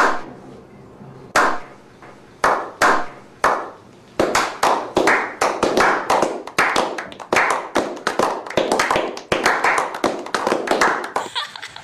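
A slow clap by a small group: single hand claps about a second apart, building after about four seconds into faster, overlapping clapping that stops suddenly near the end.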